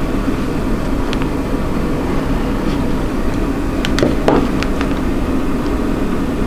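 Computer ATX power supply running, its cooling fan giving a steady hum. A few faint ticks come as multimeter probe tips touch the breakout board's terminals.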